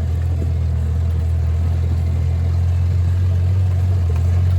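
A vehicle's engine running with a steady low rumble.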